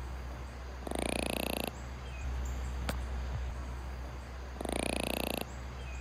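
A lemur giving two short calls, each under a second. Each is rapidly pulsing, with a higher tone over it that dips slightly. The second call, nearly four seconds after the first, is just like it. A steady low hum runs underneath.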